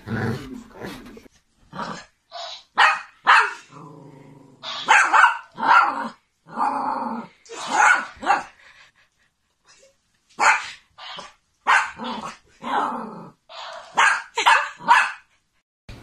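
A small dog barking over and over in short, sharp barks, with growling mixed in.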